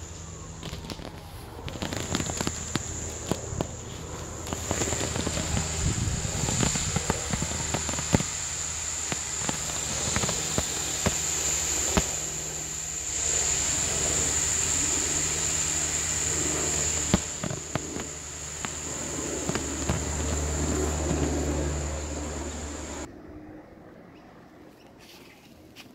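Air hissing out through the open valve of a deflating inflatable vinyl whale, with a steady high whine over it and scattered crackles and clicks. It stops suddenly near the end.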